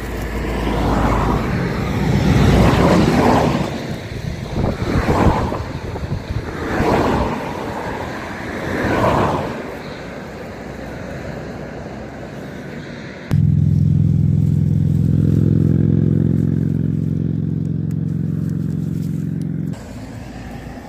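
Rustling and scraping noise in irregular swells for about the first ten seconds. Then a steady low engine-like hum starts abruptly about thirteen seconds in and cuts off sharply about six seconds later.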